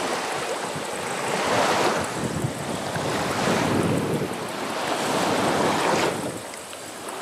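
Small Black Sea waves washing in the shallows, swelling and easing about every two seconds, with wind buffeting the microphone.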